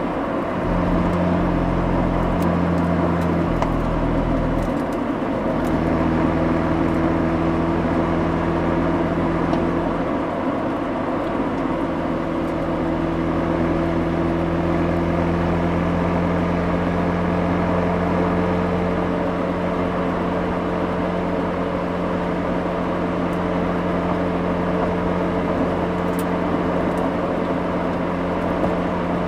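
Mazda RX-8's twin-rotor Renesis rotary engine and exhaust, heard from the rear bumper while the car cruises at fairly steady revs over tyre and road noise. The engine note shifts slightly about five seconds in and again around sixteen seconds.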